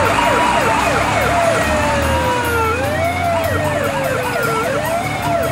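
Several airport fire engine sirens sounding together, cutting in suddenly: slow wails that fall over about two seconds and jump back up, mixed with fast yelps about five a second.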